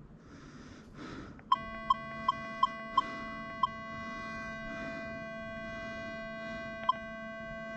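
Metal detector sounding: a quick run of six short beeps about a second and a half in, then one more near the end, over a steady electronic tone that starts with the beeps and holds.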